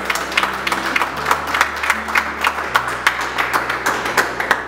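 A small group of people clapping and applauding, with music and a low bass line playing underneath.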